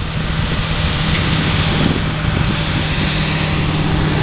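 Diesel engine of heavy construction equipment running steadily close by, a constant low drone with noisy clatter over it.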